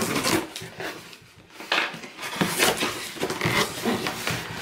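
Cardboard box being handled and its flaps worked open: irregular rustling, scraping and sharp knocks of cardboard.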